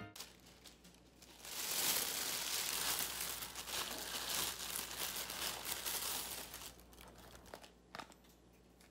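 Thin plastic carrier bag rustling and crinkling for about five seconds as takeout containers are pulled out of it, then quieter handling with one sharp click near the end.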